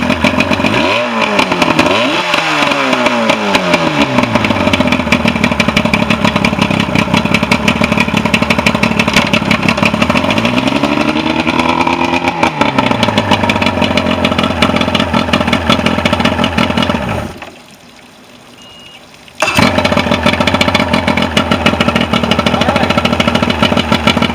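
Mercury 125 two-stroke outboard running after its stator was replaced and its carburetors and fuel pump rebuilt: it idles, is blipped twice in the first few seconds, and revs up and back down about ten to twelve seconds in. Around seventeen seconds in it winds down and goes quiet, and about two seconds later it is running again.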